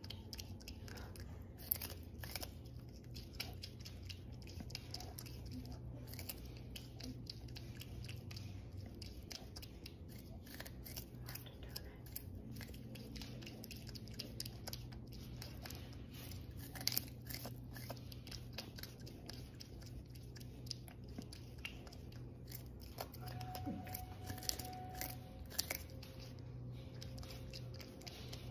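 A baby prehensile-tailed porcupine gnawing corn kernels off the cob: a fast, uneven run of crunches and clicks from its teeth.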